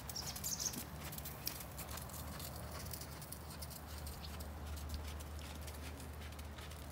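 Hoofbeats of a ridden horse: a continuing run of irregular hoof strikes, over a low steady rumble.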